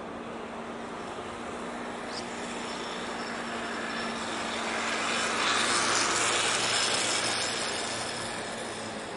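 A passing vehicle: a rushing engine-and-road noise swells to its loudest about six seconds in and fades again, over a steady low hum.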